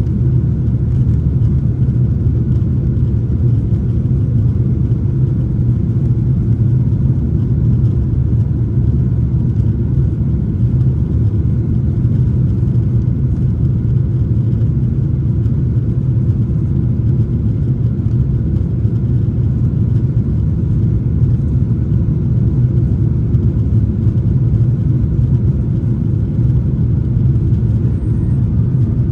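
Steady, low cabin noise inside a Boeing 737-900ER from its CFM56-7B turbofan engines and airflow, heard from a main-cabin seat.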